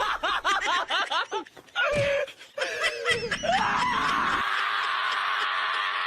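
A person laughing in quick repeated snickers, then, about halfway through, a long steady hissing sound.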